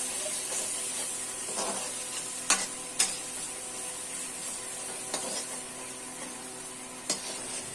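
Chopped tomatoes and spice masala sizzling in hot oil in a kadhai while a metal spatula stirs them, knocking sharply against the pan four times.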